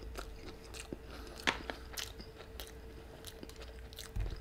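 Close-miked chewing of a mouthful of Flamin' Hot Cheetos sope: a run of small wet clicks and crunches, with one louder crunch about a second and a half in.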